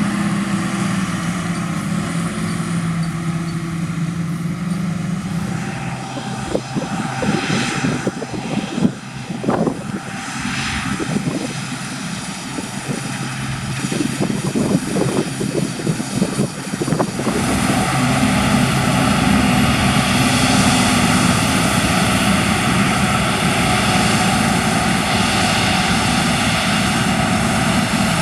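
Combine harvester running with a steady drone. In the middle comes a stretch of irregular knocks and rattles, and past the middle it runs louder and fuller.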